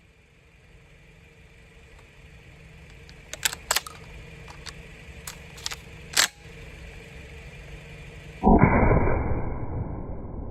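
Several sharp clicks, then about two-thirds of the way in a single loud shotgun blast from an ATA Etro shotgun firing buckshot, dying away over a couple of seconds.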